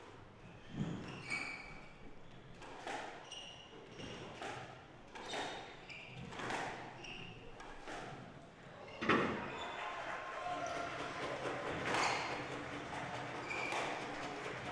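Squash rally: the ball cracks off rackets and walls about once a second, with short shoe squeaks on the wooden court floor between the hits. The loudest hit comes about nine seconds in.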